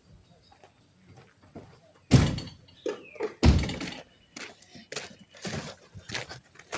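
Two loud, heavy thuds about a second and a half apart, followed by a run of lighter knocks and clicks.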